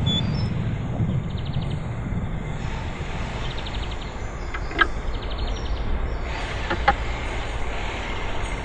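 Two sharp knocks, about five and seven seconds in, from a wooden sand-casting flask being handled, over a steady low workshop rumble.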